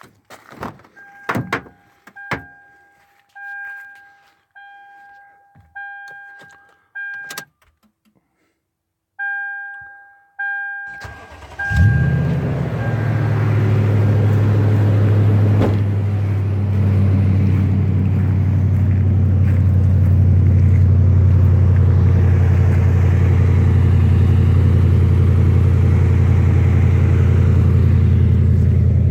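A few clicks and thumps, then a 2011 Toyota Tundra's dash warning chime beeping over and over, with one short break. About twelve seconds in, the engine cranks, catches and settles into a steady idle.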